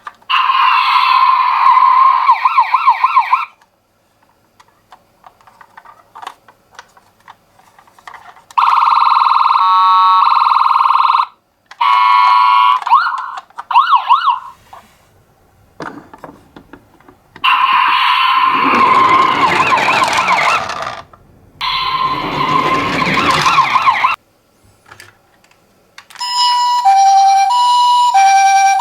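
Toy ambulance minicars sounding their electronic sirens one after another, in loud bursts of a few seconds with silent gaps between. The bursts include wailing and fast-warbling tones. Near the end comes a two-note alternating siren like that of a Japanese ambulance.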